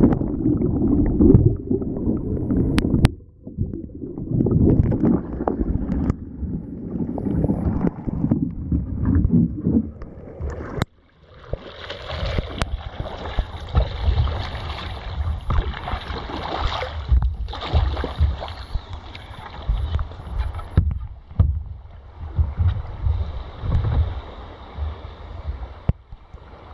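Sea kayak rolling with the camera submerged: muffled underwater gurgling and churning water for about the first ten seconds. About eleven seconds in, the camera comes back above the surface and the sound opens out into water splashing against the hull, paddle strokes and wind on the microphone.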